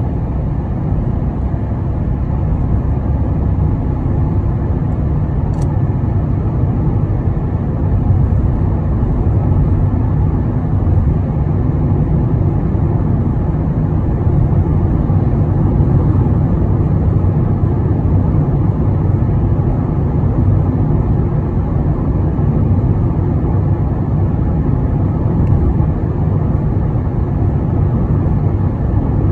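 Steady low rumble of tyre and engine noise heard inside a moving car cruising along a highway.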